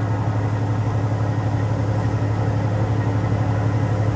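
A boat's engine running steadily underway, a constant low hum.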